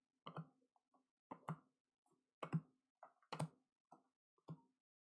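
Cardboard trading cards being flipped through by hand, each card slid off the stack and tapped onto the back of it, giving soft clicks about once a second, five in all.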